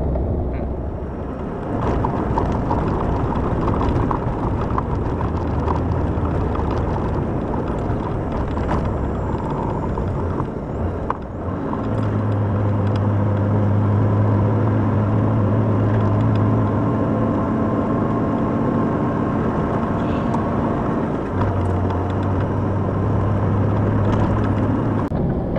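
Heavy truck's diesel engine and road noise heard from inside the cab while driving. A steady low engine drone comes in about halfway through, drops away, and returns near the end.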